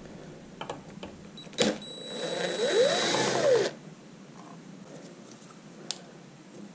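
DeWalt cordless drill spinning for about two seconds to back out a small Torx screw from a Duramax fuel filter head, its motor pitch rising and then falling before it stops suddenly. A sharp click comes just before it and another near the end.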